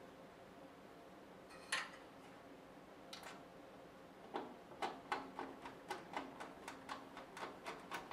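Screws being driven into the side of a computer case's drive bays: one sharp click about two seconds in, then from a little past the middle a run of light ticks, about three or four a second.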